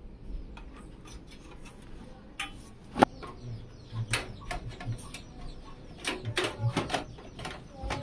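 Scattered light clicks and knocks, with one sharp loud click about three seconds in. Chickens cluck in the background from about halfway.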